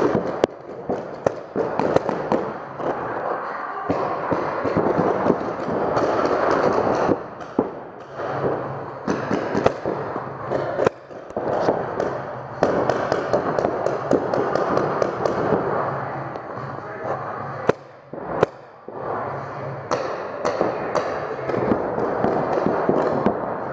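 Paintball markers firing: many sharp pops, often in quick strings, with paintballs smacking into the inflatable bunkers.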